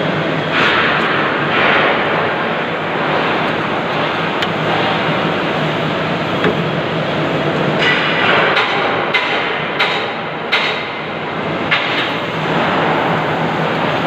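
CO2 MIG welding arc running steadily with a continuous crackling hiss, broken by several sharper pops in the second half.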